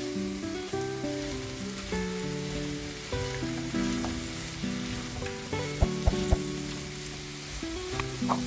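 Mushrooms sautéing in a frying pan, sizzling steadily, with a few sharp clicks about six seconds in.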